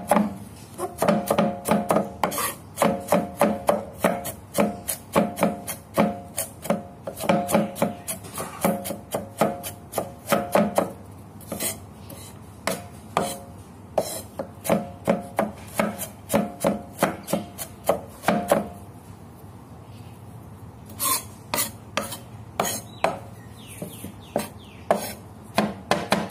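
Chef's knife rapidly chopping garlic on a thick wooden chopping board, mincing it fine: a quick run of sharp knocks, several a second, with a short lull about three-quarters of the way through.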